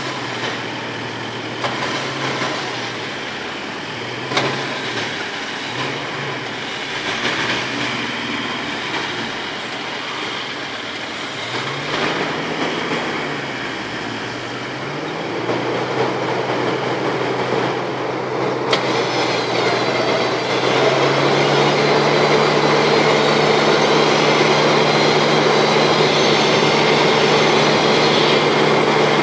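Runva 11XP 12-volt electric winch running under load as it drags a ute up a muddy bank, over the sound of the vehicle's engine. The pitch wavers at first, then settles into a steadier, louder whine about two-thirds of the way in.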